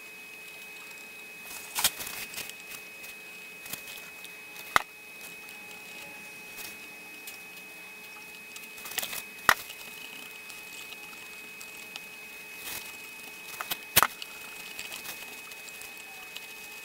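Light handling sounds of a cotton swab and fingers on a turntable's plastic gear and metal mechanism while old grease is cleaned off, with scattered small rustles and about four sharp clicks, over a faint steady hum.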